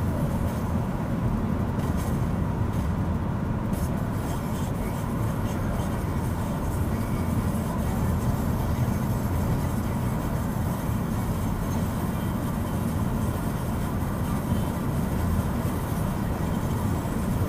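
Steady low rumble of road and engine noise heard from inside a car's cabin while driving along a highway.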